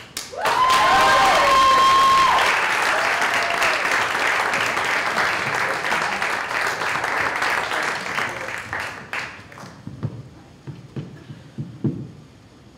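Audience applauding and cheering, loudest at the start, fading out about nine and a half seconds in. A few soft thumps follow near the end.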